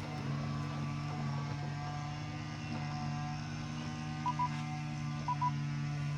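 RockMow S108 mower running its cutting disk with a steady motor hum. From about four seconds in, a short double beep sounds about once a second.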